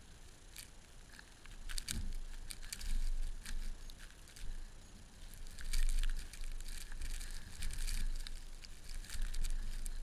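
Lake-effect blizzard wind gusting in waves, rumbling on the microphone, with a fine crackle throughout.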